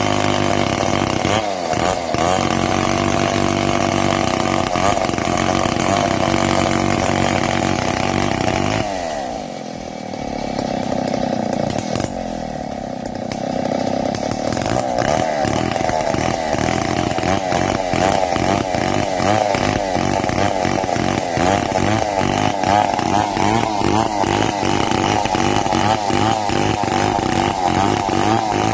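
Two-stroke petrol chainsaw under load, ripping lengthwise along a log. About nine seconds in the engine drops off briefly, then revs back up and keeps cutting.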